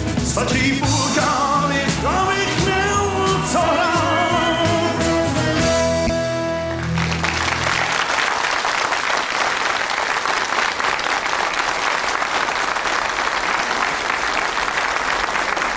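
A pop-rock band with guitars and saxophone plays the last bars of a song, ending on a held note about seven seconds in. A studio audience then breaks into steady applause.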